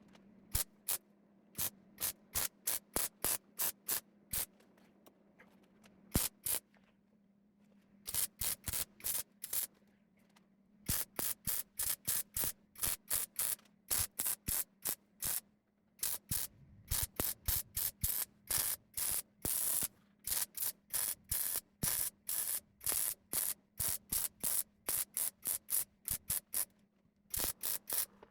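MIG welder stitch-welding a new sheet-steel bottom section into a car door: short crackling hisses of a fraction of a second each, about two to three a second, in runs broken by pauses of a second or two, over a faint steady low hum.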